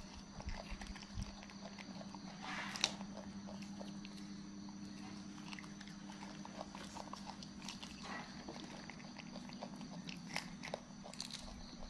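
Monkeys biting, chewing and peeling green bean pods: scattered small crunches, snaps and nibbling clicks, with a louder crunch about two and a half seconds in. A steady low hum runs underneath.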